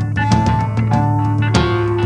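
Instrumental break of a country-blues song: a resonator guitar picked in single held notes over a drum beat and a steady low bass tone, with no singing.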